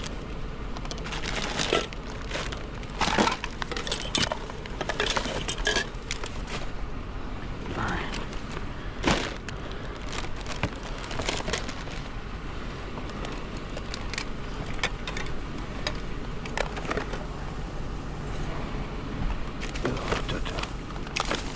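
Junk and scrap being handled and tossed: a run of sharp knocks, cracks and clatters, thickest in the first half and sparser after, over a steady low hum.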